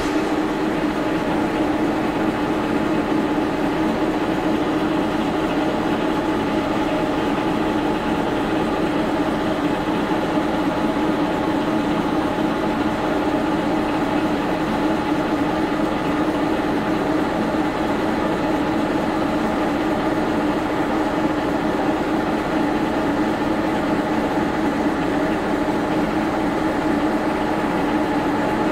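Old milling machine running steadily as it drills a hole in a workpiece held in the vise: a constant machine hum with steady tones and no change in speed.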